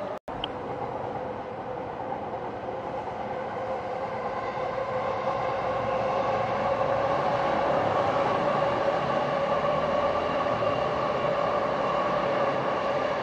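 Electric commuter train of the JR Chuo-Sobu local line running along the track, a steady rumble of wheels on rails with a hum, growing louder from about five seconds in as it draws near.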